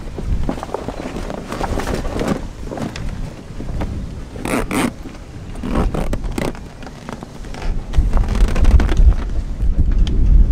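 Rustling and scraping of a heavy plastic-coated fabric bag as it is pulled and worked over a dive compressor, with wind buffeting the microphone.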